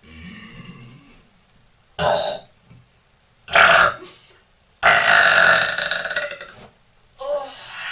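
A woman burping repeatedly: short burps about two and three and a half seconds in, then a long drawn-out burp of nearly two seconds, and another starting near the end.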